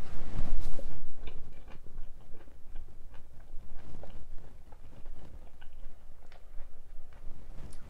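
Human stomach and intestines gurgling while digesting a meal: a louder gurgling rush in the first second, then many scattered small pops and bubbling clicks.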